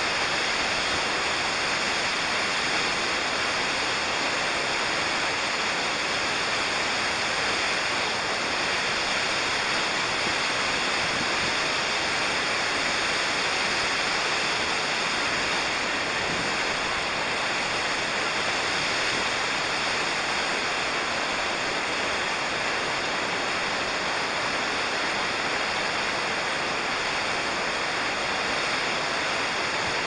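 Waterfall rushing steadily: an even, unbroken wash of falling water with no changes.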